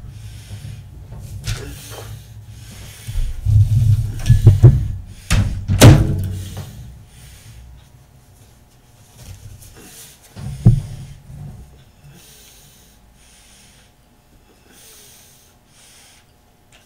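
Workbench handling noises: a few knocks and thumps over a low rumble in the first six seconds and another sharp knock about ten seconds in, then faint rubbing and breathing as a small bottle is handled.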